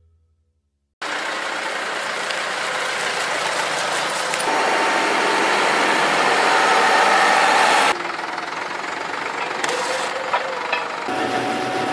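Near silence for about a second, then Massey Ferguson tractor diesel engines running close up, starting abruptly. The sound changes suddenly three times as the shots change, with a steady whine over the engine in some stretches.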